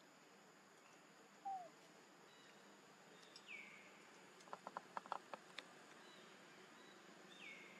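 Near-silent outdoor background with a few faint, short high chirps that fall in pitch, and a quick run of about eight soft clicks around the middle.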